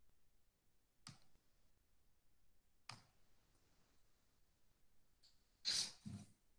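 Near silence with a few faint clicks, one about a second in and one near three seconds, and a louder double knock near the end.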